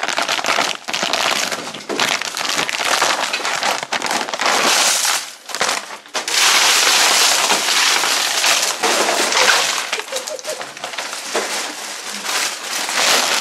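Chupa Chups lollipops in plastic wrappers being poured out of a bag onto a heap of candy: a dense, continuous clatter and crinkle of wrappers, with a brief lull about six seconds in.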